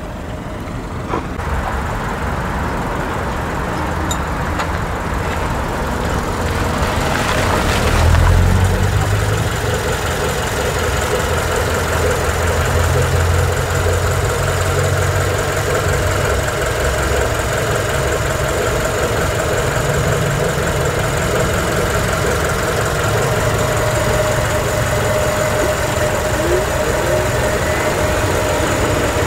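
Chery Tiggo 2's 1.5-litre inline-four petrol engine idling steadily. It grows louder over the first several seconds, with a brief noise about eight seconds in, then holds an even hum.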